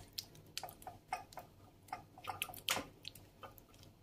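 Metal spoon spreading a thick yogurt sauce over cauliflower steaks on a parchment-lined baking tray: faint, irregular wet clicks and soft taps.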